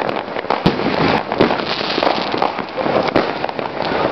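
Many fireworks and firecrackers going off at once: a dense, unbroken crackle of small bangs with louder single reports scattered through it.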